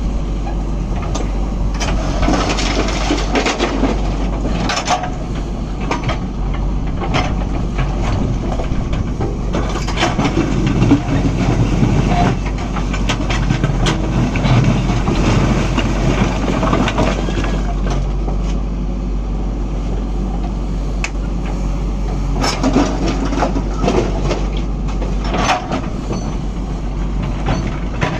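A JCB backhoe loader's diesel engine running steadily under a constant low rumble, with stones clattering and knocking as they are loaded into a tipper lorry. Sharp knocks come in clusters: several early on, a run around a third of the way in, and more near the end.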